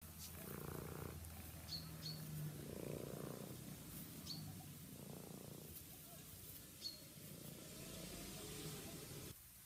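Faint, slow snore-like rasping, four soft swells two to three seconds apart, over a low steady hum; the uploader takes it for a snoring slug. Four short, high chirps fall between the swells.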